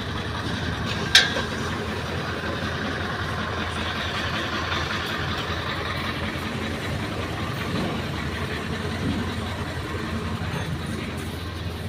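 A steady engine-idling rumble, with one sharp click about a second in.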